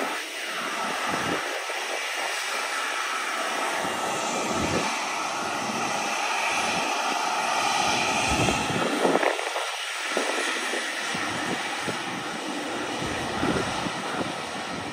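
Airbus A321neo's jet engines running at low power as the airliner taxis along the runway: a steady jet hiss, with a higher whine swelling in the middle.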